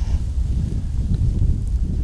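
Wind buffeting the microphone outdoors, a low uneven rumble.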